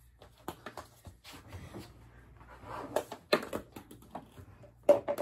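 Scattered light taps and knocks of a small ball bouncing on a wooden floor, the sharpest about three seconds in, again just after, and near the end.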